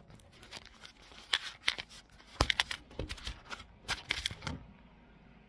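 Handling noise from a phone held and moved by hand close to its microphone: irregular soft clicks, taps and rustles that stop about four and a half seconds in.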